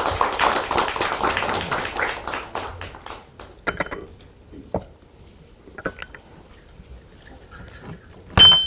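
A short round of applause lasting about three seconds, followed by scattered clicks and a sharp clink of glass or china near the end.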